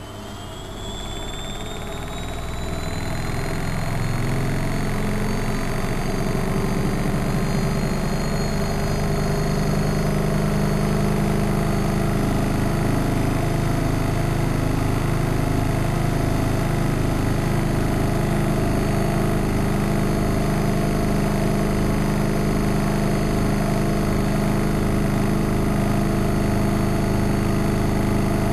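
Studio WM26AAA washing machine speeding up into its spin: a motor whine rises in pitch and the sound grows louder over the first several seconds, then settles into a steady hum and drone at full spin speed.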